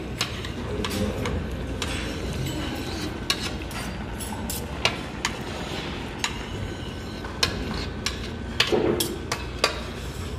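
Metal spoon and chopsticks clinking and scraping against a ceramic platter as a whole grilled cutlassfish is boned at the table. Sharp clicks come irregularly over a steady low background hum.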